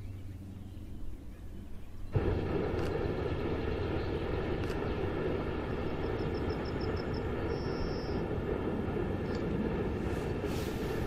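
Hot air balloon's propane burner firing: a steady rushing blast that starts suddenly about two seconds in and runs on without a break. A bird chirps briefly partway through.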